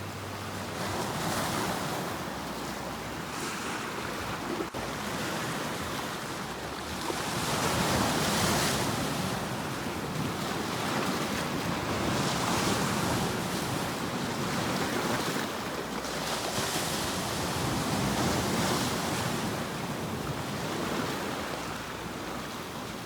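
Sea waves breaking on the shore: a rush of surf that swells and fades roughly every four to five seconds.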